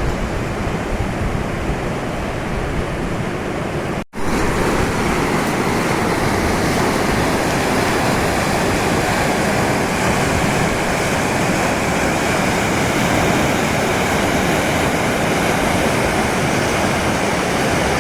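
Rushing river water, a steady loud noise. It cuts out for a moment about four seconds in and comes back a little louder and brighter.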